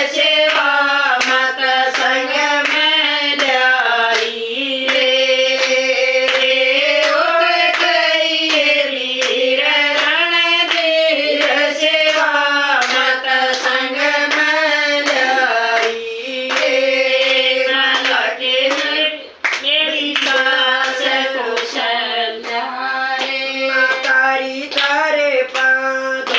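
A group of women singing a Hindu devotional bhajan together, keeping time with steady hand claps.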